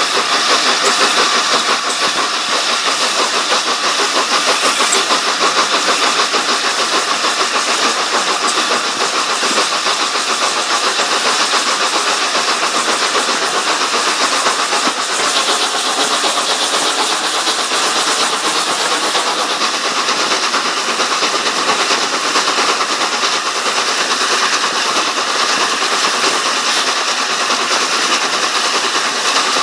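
LNER Class A4 4464 'Bittern', a three-cylinder streamlined steam locomotive, working a train away from a station, its exhaust beating in a fast, even rhythm over the running noise of the carriages on the rails. It is heard from an open carriage window a few coaches back.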